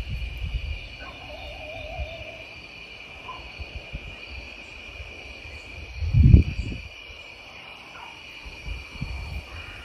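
A dog giving one wavering, wolf-like howl about a second in, over a steady high chorus of night insects. A loud, muffled low rumble comes about six seconds in.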